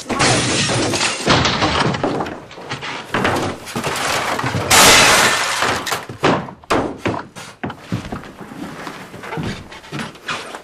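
A run of crashing and smashing as things are knocked over and broken, loudest about five seconds in, followed by scattered sharp knocks and thuds.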